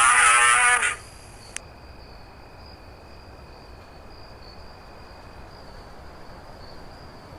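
Bear sound effect: a loud, wavering pitched cry ending about a second in, then a single click and a faint steady high hum until the next call.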